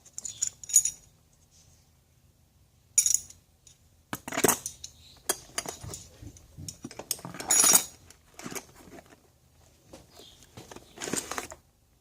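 Metal hand tools, wrenches and pliers, clinking and rattling against each other as they are handled and pulled from a tool bag's pockets. The clinking comes in several separate bursts, the loudest about seven and a half seconds in.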